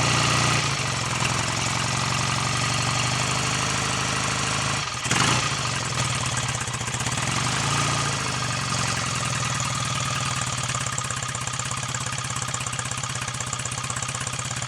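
BSA A65 Lightning's 650 cc parallel-twin engine running steadily just after its rebuild, with a brief dip and pick-up about five seconds in. The owner judges its ignition timing still somewhat retarded.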